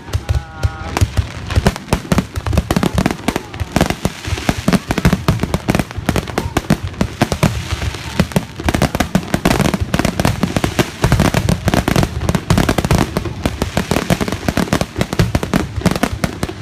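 Fireworks display going off in a rapid, continuous barrage of bangs and crackling, with deep booms underneath.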